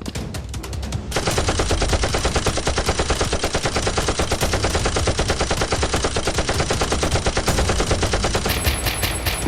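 Rapid automatic gunfire, likely a machine-gun sound effect: one long continuous burst that starts about a second in and stops near the end.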